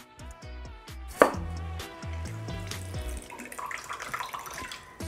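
A knife cuts through a lime onto a wooden cutting board with one sharp knock about a second in. Then freshly squeezed lime juice trickles and drips into a glass measuring cup, under background music.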